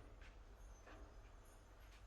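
Near silence: faint room tone with a low hum and a few soft taps.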